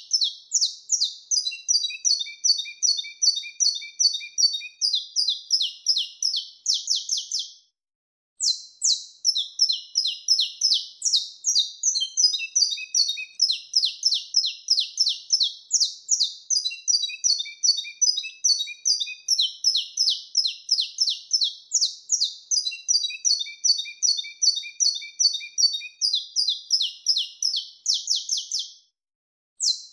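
Saffron finch (canário-da-terra) singing its wild-type 'mateiro sinado' song: a long, fast run of high repeated chips that breaks off briefly about eight seconds in and again near the end.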